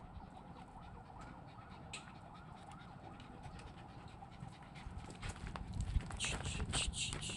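Small dog panting close by, quick breaths about three a second that become loud in the second half, with scattered crunches of gravel underfoot; a faint wavering tone hums underneath.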